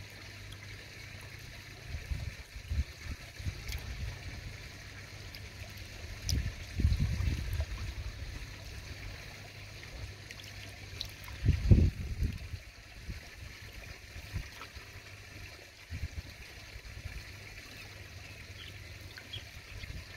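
Pond water trickling steadily, with a few low rumbling bursts, the loudest just past the middle.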